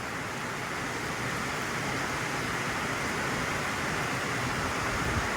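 Steady rain falling, an even hiss that swells slightly in the first couple of seconds.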